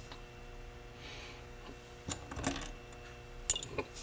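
Small RC axle parts clinking and clicking as they are handled and set down on a workbench: a couple of sharp clinks about two seconds in, then a quick run of clinks near the end.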